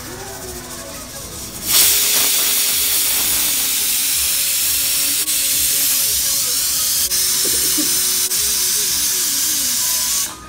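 Pressure cooker venting steam through its weighted valve: a loud, steady hiss that starts suddenly about two seconds in and cuts off just before the end.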